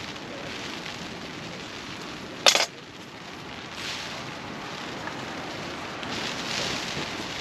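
Hot water being poured from a metal camping pot into a pour-over coffee filter. About two and a half seconds in comes a single sharp metallic clink as the pot is set back down on the brass camping stove, over a steady rushing noise.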